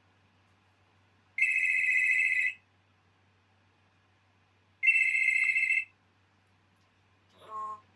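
A telephone ringtone sounding twice: each ring is about a second long and rings are about three and a half seconds apart. A brief, quieter lower-pitched call follows near the end.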